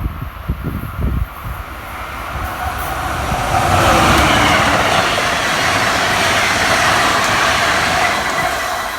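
MARC commuter train passing at speed, its wheels rushing on the rails in a rising roar that is loudest midway and eases near the end. There are a few low thumps in the first second.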